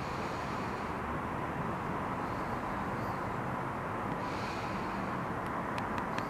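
Steady, even hum of distant city traffic heard from high above the streets, with a few faint sharp clicks near the end.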